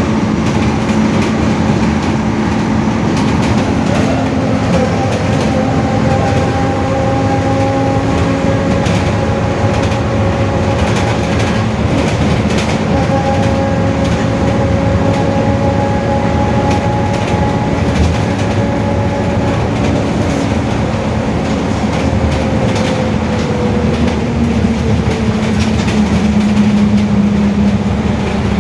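Mercedes-Benz OF-1721 bus's rear differential whining very loudly in several steady tones over the rumble of the running gear, with the pitch shifting a little late on.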